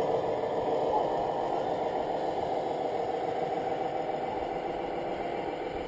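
Radio-controlled scale Scania trucks running on a dirt track, giving a steady engine-like drone.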